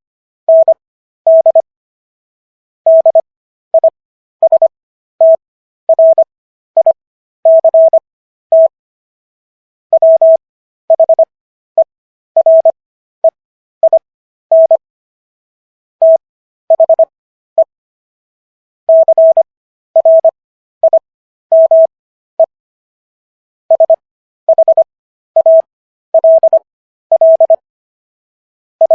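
Morse code sent as a single steady beeping tone, keyed in short dits and longer dahs. It runs at 15 words per minute with Farnsworth spacing: characters sent at 25 WPM with stretched gaps between them. It spells out the text of the Sixth Amendment of the US Constitution.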